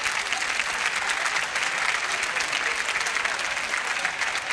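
Studio audience applauding, a dense, steady clatter of many hands clapping.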